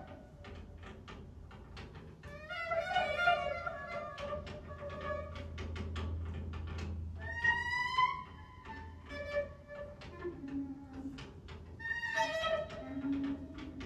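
Free improvisation for soprano saxophone and live electronics: the saxophone plays short pitched phrases that bend and glide, over a steady low electronic hum scattered with short clicks.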